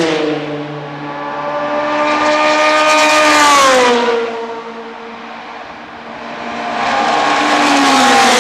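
Group C sports-prototype race cars passing one after another at racing speed. Each engine note grows louder as a car approaches and drops in pitch as it goes by: one car just at the start, another about four seconds in, and a third building up near the end.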